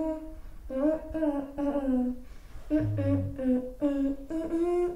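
A child humming a tune without words, in short held notes that step up and down in pitch.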